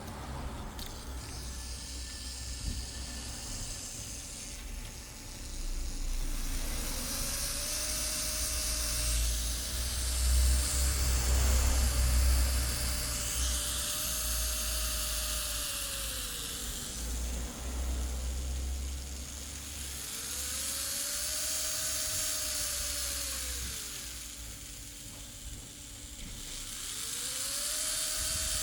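Small electric motor of a nail drill speeding up and slowing down four times, its whine rising and falling in pitch with a high hiss each time.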